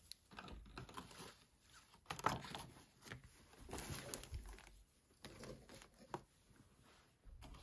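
Faint handling noise: scattered soft clicks and crinkles as plastic HeroClix figures, their plastic packaging and cardboard booster boxes are moved about and the figures set down on a game mat.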